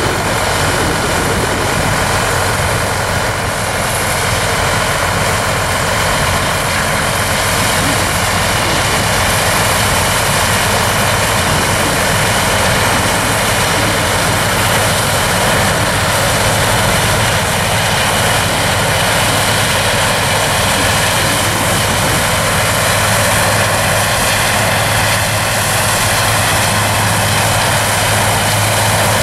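Steady drone of diesel harvest machinery at work: a New Holland combine harvesting corn, with a tractor and grain cart working alongside, running evenly without a break.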